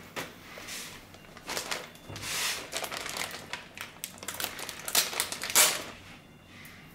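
Clear plastic bag around a car stereo head unit crinkling and rustling in irregular bursts as hands handle it, loudest about five seconds in.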